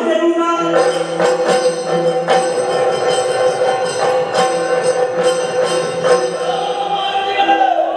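Yakshagana ensemble music: a held drone note with sharp drum strokes and small cymbals or bells struck over it in an uneven rhythm.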